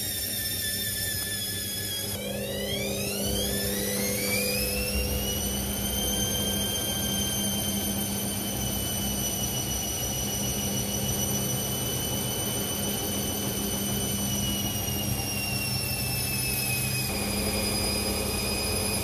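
Candy CS1292D3 front-loading washing machine with its drum turning through wet towels. About two seconds in, the motor whine rises in pitch as the drum speeds up, then holds steady over a low hum and eases down a little near the end.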